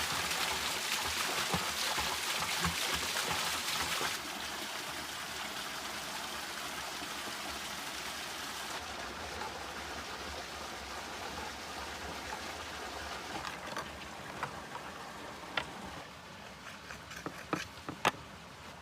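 Stream water running steadily, with a few sharp clicks near the end.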